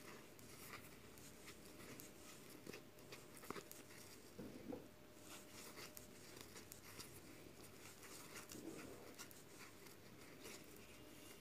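Near silence, with faint scattered clicks and rustles of a crochet hook and cotton yarn being worked and handled.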